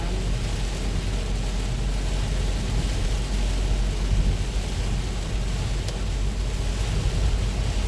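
Heavy rain falling steadily, an even hiss over a deep low rumble.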